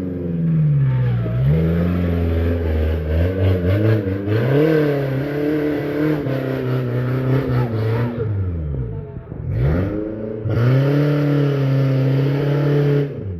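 Off-road 4x4's engine revving up and down repeatedly. The revs dip about nine seconds in, then climb and hold high before falling away near the end.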